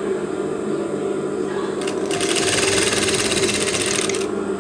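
Sewing machine stitching pom-pom trim onto stretchy lace, running steadily, its sound turning sharper and hissier for about two seconds in the middle.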